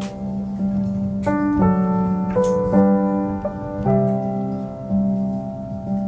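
Background piano music: slow, held chords over a sustained low note, the harmony changing every second or so.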